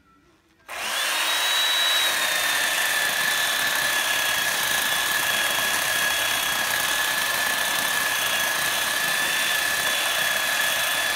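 Small Poulan electric chainsaw starting up about a second in and then running steadily with a high whine as it cuts into a dead oak trunk, deepening the felling notch. The whine drops slightly in pitch a second after it starts and then holds steady.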